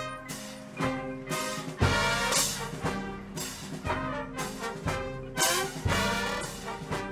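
Drum and bugle corps brass line and percussion playing a loud show passage, with sustained brass chords punctuated by sharp accented hits about once a second.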